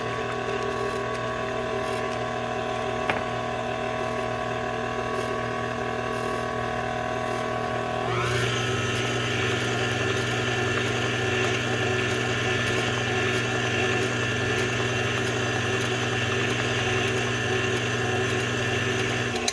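Electric mixer motor running steadily while beating pumpkin bread batter, stepped up to a higher speed about eight seconds in, then switched off at the end.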